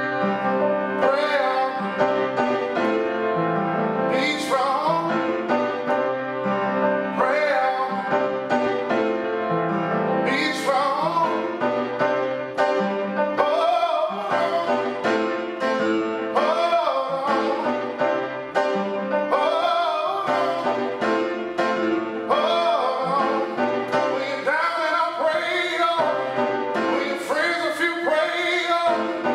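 A man singing with his own piano accompaniment: the voice sliding between held notes over sustained piano chords.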